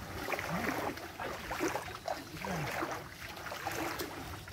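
Wading footsteps through shin-deep floodwater: legs pushing through the water, sloshing and splashing unevenly with each step.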